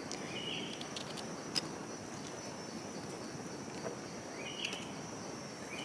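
Forest insects: a steady high drone over an even hiss, with two short rising chirps, one about half a second in and one near the end, and a few faint clicks.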